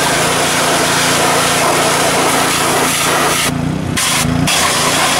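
Pressure-washer spray hissing loudly against a car's engine bay, over a steady motor hum. The spray cuts out briefly twice near the end as the trigger is let go.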